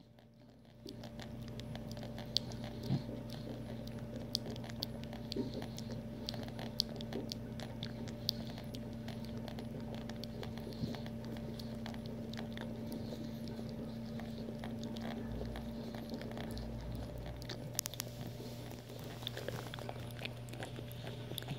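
English bulldog chewing and biting at a rubber balloon: irregular sharp clicks of teeth on the latex, over a steady low hum.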